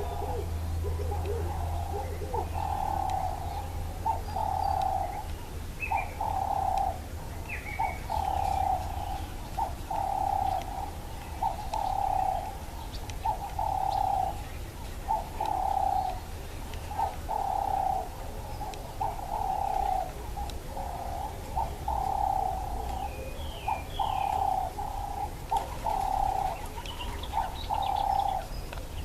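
Dove cooing, a steady series of similar notes about one a second, with a few faint higher chirps from other birds.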